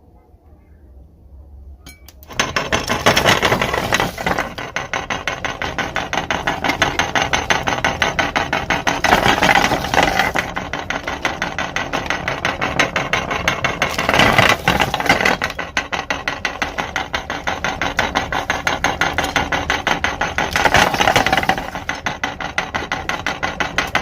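Meat grinder crushing plastic Ludo dice: a dense, rapid crackling clatter that starts about two seconds in and swells louder several times.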